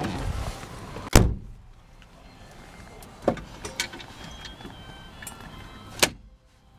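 Sharp knocks and clicks of a 1950 Chrysler Crown Imperial's interior hardware being handled: a loud thump about a second in, a few light clicks in the middle, and a sharp snap near the end as the metal glove box door is shut.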